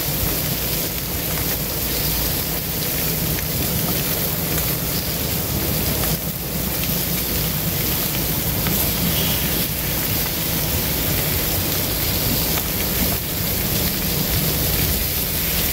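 Boneless chicken thighs sizzling steadily on a hot Blackstone flat-top griddle, over a steady low hum.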